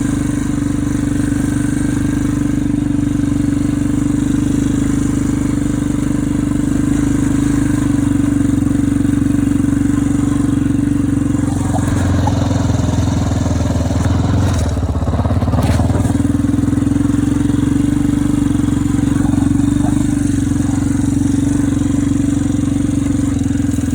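ATV engine running steadily under way at a constant pitch. About halfway through, the note drops lower and rougher for a few seconds with some clatter, then settles back to its steady pitch.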